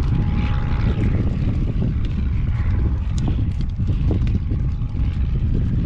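Strong wind buffeting the microphone with a heavy, steady rumble, over a horse's hooves clopping at a walk.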